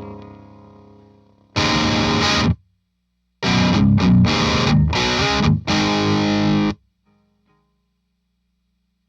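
Overdriven electric guitar through a Parks Dagon OD, a Klon-style overdrive pedal, into a Marshall JCM900 amp: a chord rings and fades, a short chord is choked off about two seconds in, then a riff of chord stabs starts about three and a half seconds in and stops sharply near seven seconds. A faint hum is left after it.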